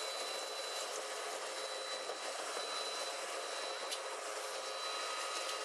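Apple washing machine running: a steady, even hiss with a few faint, steady whining tones.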